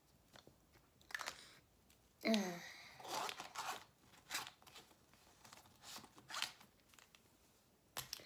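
Handling noise from Posca paint markers being picked out of their case: a run of rustling and clattering, with a brief falling squeak about two seconds in and a few sharp clicks near the end as a marker is handled.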